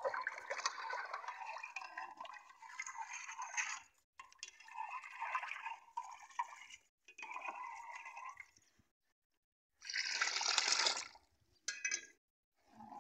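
A metal spoon stirring a thin, watery kadhi mixture in a bowl: liquid sloshing, with light clinks of the spoon against the bowl. The sound comes in several spells with short breaks.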